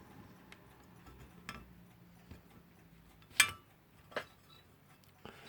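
A few separate light metallic clicks and clinks as small metal clock parts are handled, the sharpest about three and a half seconds in.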